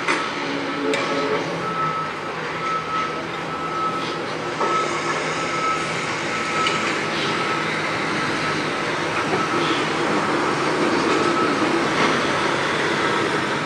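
Construction site din: a dense, steady wash of machinery and traffic noise, with a vehicle's reversing alarm beeping regularly through the first half and a few sharp knocks.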